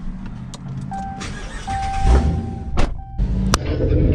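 A V8 car engine running at low speed, heard from inside the cabin. A steady electronic beep sounds through the middle, broken once, with a few sharp clicks. The engine gets louder in the last second.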